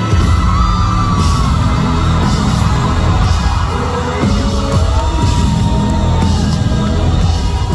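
Live pop-rock concert music heard from among the audience: a loud band with heavy bass, a voice holding long sung notes twice, and fans yelling along.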